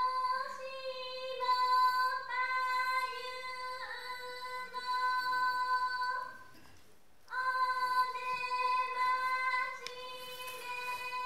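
A high singing voice holding long, steady notes in two phrases, with a break of about a second about six and a half seconds in.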